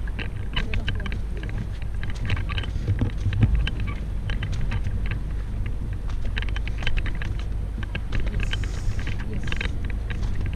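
Wind rumbling on the microphone, with many small clicks and taps from the camera being handled as it pans.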